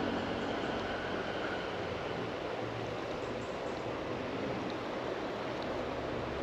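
A steady rushing noise, with a few faint high ticks scattered through it.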